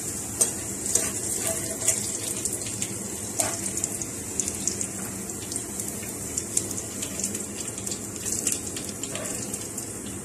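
Hot oil sizzling in a non-stick frying pan as sliced onions fry to a golden brown, a steady sizzle with scattered small crackles and pops.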